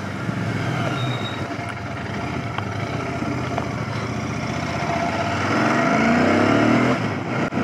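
Royal Enfield Continental GT 650's 648 cc parallel-twin engine running as the bike rolls slowly in low gear. About five and a half seconds in, the engine note rises and gets louder as the rider opens the throttle.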